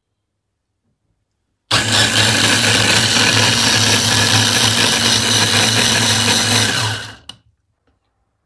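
Electric hand blender motor on its chopper-bowl attachment, grinding orange pieces into pulpy juice. It starts suddenly about two seconds in, runs at a steady high speed for about five seconds, then stops and spins down.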